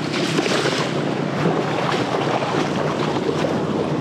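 River water rushing and splashing steadily.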